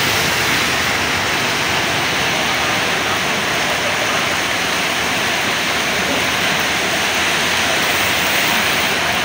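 Heavy rain pouring down, a steady dense hiss, heard from under a corrugated sheet-metal roof.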